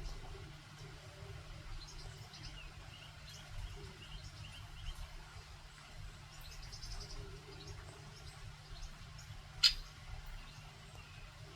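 Faint, scattered high bird chirps over a low, steady background rumble, with one brief, sharp, loud sound about ten seconds in.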